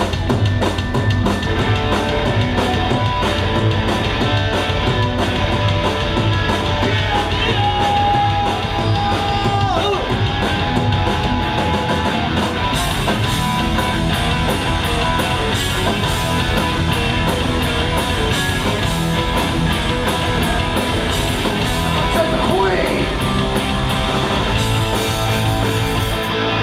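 Live rock band playing loudly, with a voice yelling and singing over it; the band stops abruptly near the end.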